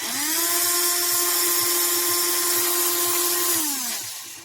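HARDELL 12V cordless mini rotary tool's motor spinning up with a rising whine, running at a steady high speed for about three and a half seconds, then winding down near the end. The tool works only intermittently and sometimes just quits.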